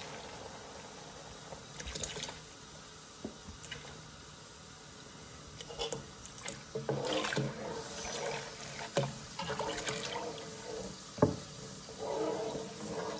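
Milk pouring in a steady stream into a pot of boiled rice, splashing and filling. From about halfway through come a few clinks and knocks, the sharpest one about eleven seconds in.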